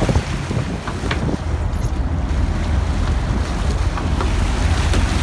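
Wind buffeting the microphone on an open boat, a steady low rumble, with a couple of faint clicks about a second in.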